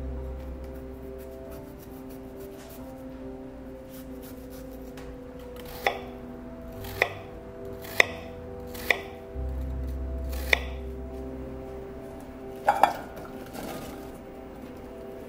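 Kitchen knife chopping apple on a wooden cutting board: five sharp knocks roughly a second apart, then a short clatter of cookware near the end. Soft background music plays throughout.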